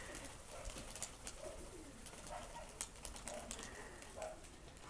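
Domestic pigeons cooing faintly, a string of short low coos.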